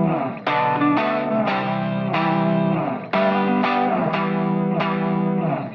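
Background music led by a distorted electric guitar, chords struck on a steady beat about twice a second.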